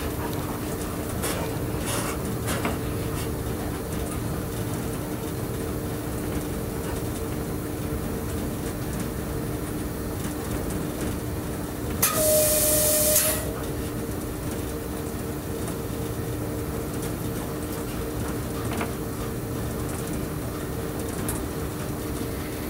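Steady running noise of an electric train heard from its cab, with a constant low hum. About twelve seconds in, a loud hiss of escaping air with a faint whistling tone, lasting about a second and a half.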